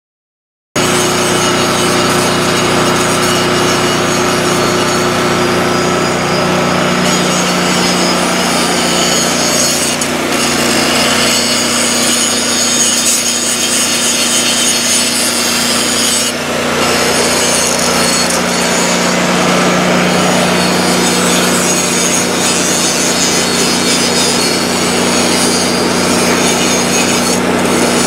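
Angle grinder grinding down welds on a steel excavator boom, running steadily with a few brief let-ups, over a steady low hum.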